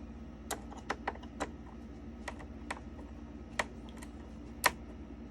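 Irregular sharp clicks and taps, about eight in five seconds, from hands working parts of a DJ controller's crossfader assembly and screws, over a faint low hum.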